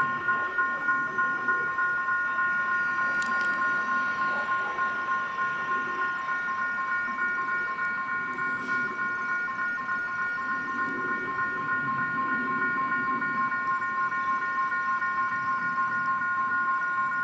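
Railway level-crossing warning alarm ringing continuously: a rapid, evenly pulsing electronic tone made of several high pitches sounding together. It signals that the barriers are down and a train is about to cross.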